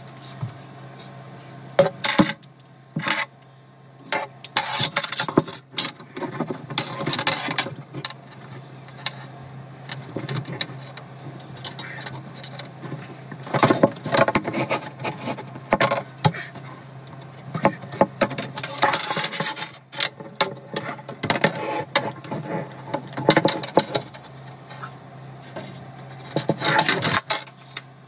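Irregular scraping, rubbing and knocking as tools and materials are handled inside a cramped under-sink kitchen cabinet, with a tape measure in use, in clusters over a steady low hum.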